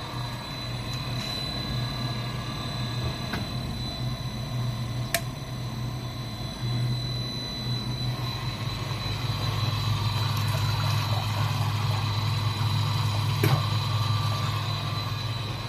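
Electric agitator motor and supply pump of a tank machine running on test, a steady low hum with a steady high whine over it, getting louder about two-thirds of the way through. Two sharp clicks stand out, one about a third of the way in and one near the end.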